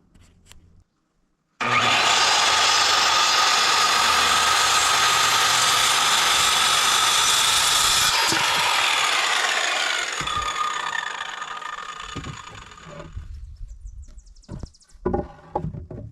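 Power saw cutting wood: it starts abruptly and runs loud and steady for about six seconds, then its pitch falls and it winds down over several seconds. A few knocks follow near the end.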